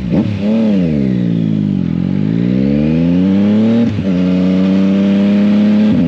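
Motorcycle engine blipped once, then dropping and climbing in pitch as it pulls away under throttle. About four seconds in the revs fall sharply for an upshift and then hold steady, with another shift right at the end.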